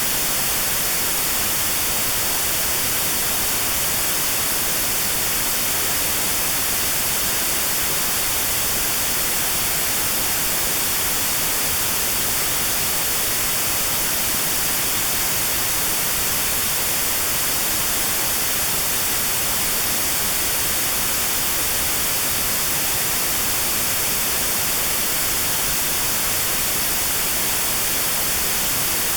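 Steady synthetic white noise with a narrow band around 4 kHz filtered out: notched sound therapy aimed at a 4 kHz tinnitus tone. It is an even, unchanging hiss.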